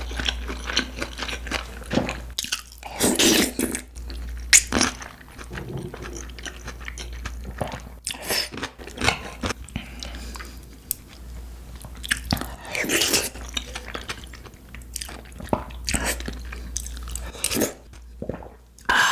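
Close-miked chewing and biting of gimbap (Korean seaweed rice rolls): steady wet mouth clicks and smacks, with a few louder bites along the way.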